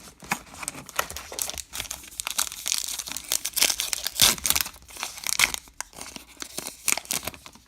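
A baseball card pack's wrapper being torn open and crinkled by hand: a dense run of crackles, loudest about four seconds in, dying away near the end.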